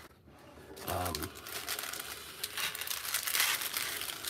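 Crinkling of the clear plastic film on a diamond painting canvas as the canvas is handled and rolled, irregular and busiest near the end.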